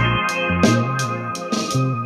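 Background music with a steady drum beat, a stepping bass line and held keyboard chords.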